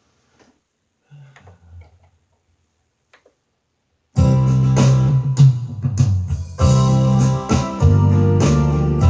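Quiet with a few faint knocks, then about four seconds in electronic keyboard music starts abruptly: organ-like chords over a bass line and a steady drum beat.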